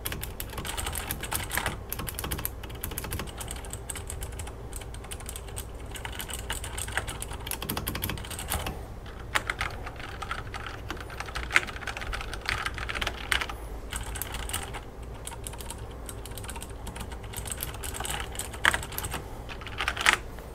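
Typing on a mechanical keyboard with Cherry MX Blue switches and WASD O-rings fitted under the keycaps: fast, irregular key clicks with a few short pauses and some louder strokes.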